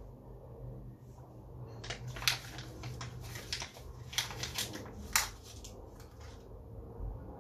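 A sheet of printed paper crinkling and crackling as it is folded and stuffed into the mouth: a run of sharp, irregular crackles starting about two seconds in and stopping about five seconds in.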